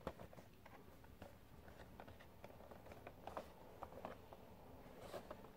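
Near silence, with faint, scattered light ticks and rustles of a cardboard Funko Pop box with a plastic window being turned over in the hands.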